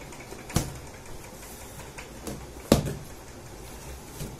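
Knocks and taps of hands handling a taped cardboard shipping box as a box cutter is put to the packing tape: two sharp knocks, about half a second and two and a half seconds in, the second the loudest, with a few lighter taps, over a steady low hum.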